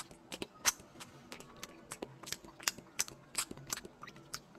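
A small dog chewing leafy greens: a run of irregular short clicks and crunches, a few each second.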